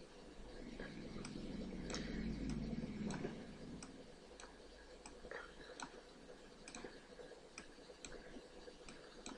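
Faint, steady ticking at about two ticks a second. A low rumble swells up about a second in and fades out by about four seconds.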